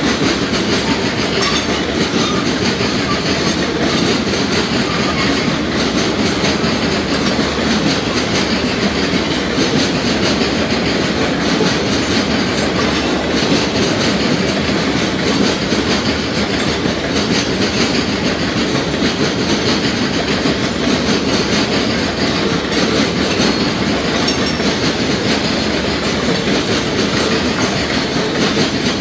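Covered hopper cars of a freight train rolling past, with the steady clatter of steel wheels on the rails.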